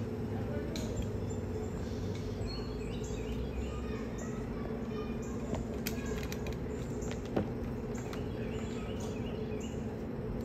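Forest ambience: birds chirping in short repeated calls over a steady low hum, with a few sharp clicks around the middle.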